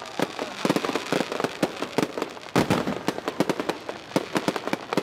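Aerial fireworks going off: a dense, irregular run of sharp bangs and crackles, with a louder cluster about halfway through.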